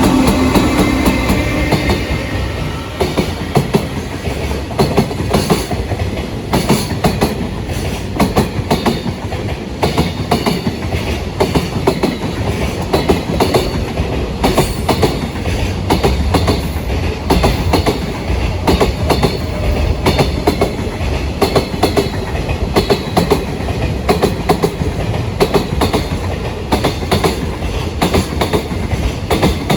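Freight train wagons rolling past, their wheels clacking over the rail joints in a steady, fast rhythm. A short rising whine sounds at the very start.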